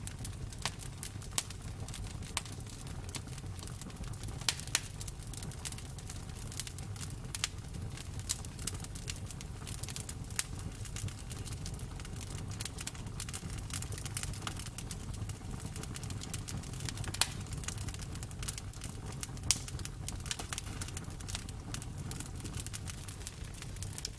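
Campfire burning: a steady low rumble of flames with irregular sharp crackles and pops of burning wood, a few louder pops scattered through.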